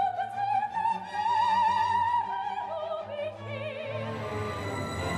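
Operatic soprano singing long held notes with wide vibrato over orchestral backing, stepping down to a lower note about three seconds in.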